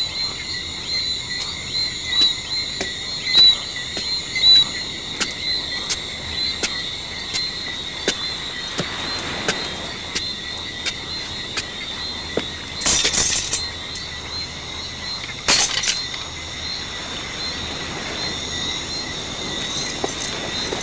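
Crickets chirping steadily in a high-pitched chorus, with a few sharp knocks early on and two short, louder bursts of noise around the middle.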